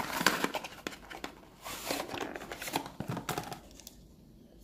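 A plastic bottle being pulled out of its paperboard carton by hand: rustling and scraping of the card with scattered small clicks and crackles, dying away in the last second.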